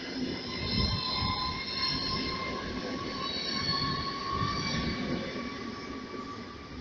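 PKP Intercity ED250 Pendolino electric train moving slowly past, its wheels squealing in several steady high tones over a low rumble. The sound fades over the last couple of seconds as the train draws away.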